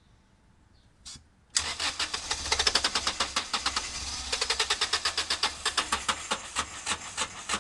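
Car engine being cranked over by its starter, a fast, even run of chugging pulses that starts about a second and a half in and keeps going without the engine catching. The engine has its fuel injectors unplugged and is being tried on hydrogen fed into the intake.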